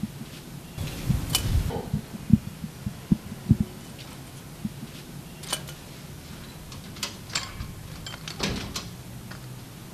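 A few low dull thumps, then the clicks and clanks of a sheet-metal door being pulled shut and its latch worked in the second half.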